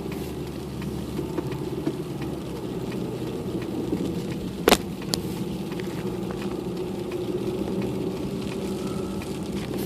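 A car running, heard from inside the cabin: a steady engine and road hum, with one sharp click a little under halfway through.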